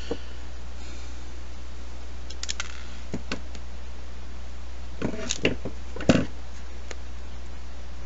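Small wire cutters snipping component leads: a few light snips around two to three seconds in, then a quick cluster of sharper snips about five to six seconds in, the last one the loudest. A steady low hum runs underneath.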